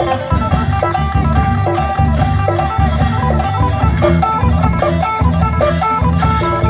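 Live Thai folk band playing: plucked lutes carry a bright melody over drums and a heavy, pulsing bass.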